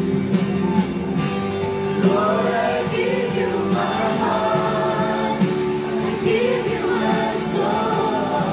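A group of worshippers singing a hymn together, with guitar accompaniment.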